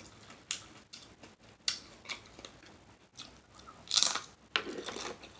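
Chewing and mouth smacking while eating shrimp salad, a series of short wet clicks and pops with a louder cluster about four seconds in.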